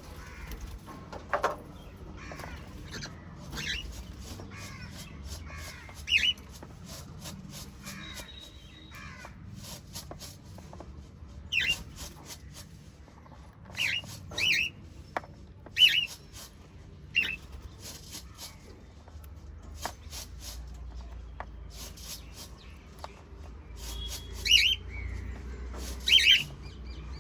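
Pet cockatiel and budgerigars calling: sharp, short, high chirps every few seconds over quieter continuous chattering and warbling.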